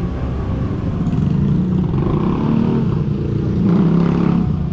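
Motor vehicle engine running on the move, its note rising and falling as it pulls along.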